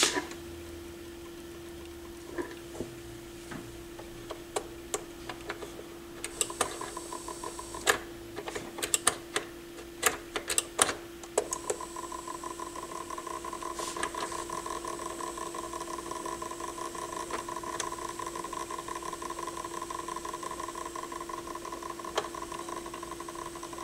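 Pioneer PL-707 turntable running with its platter off: a steady hum with scattered sharp clicks from the mechanism being handled. About eleven seconds in, a steady buzzing rattle sets in from the drive and gear mechanism, a rattle whose source the owner cannot find.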